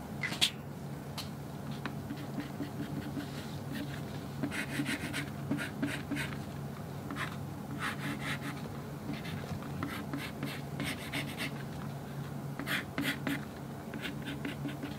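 Black pen drawing on a shikishi art board: quick scratchy hatching strokes in short clusters, with a sharper tap right at the start. A faint steady low hum runs underneath.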